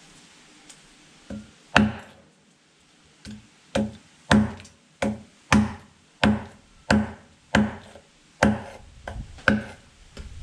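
A large kitchen knife chopping through a whole tilapia onto a thick wooden chopping block: about a dozen sharp chops, roughly one every two-thirds of a second, after two or three scattered ones at the start.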